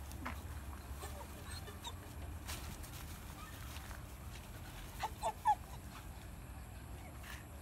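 Three short, quick animal calls in a row about five seconds in, over a faint low background rumble.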